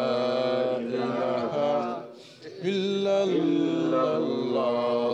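A man's voice chanting an Islamic devotional melody in long, drawn-out held notes, with a short break for breath about two seconds in.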